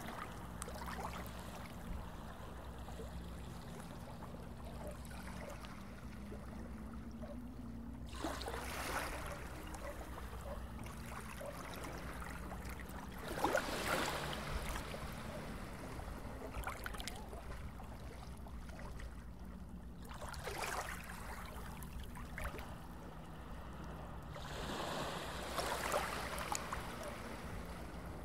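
Underwater ambience: a steady low hum with four swells of water noise a few seconds apart, the loudest near the middle.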